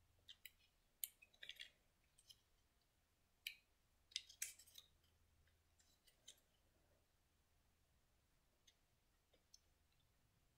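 Faint, scattered clicks and taps of laser-cut wooden kit pieces being handled and pushed together, frequent through the first six seconds and a few more near the end.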